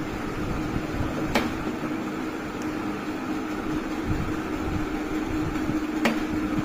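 Steady mechanical hum with a level tone, broken twice by a sharp click, about a second in and again near the end, as a plastic spoon knocks against a ceramic salt jar.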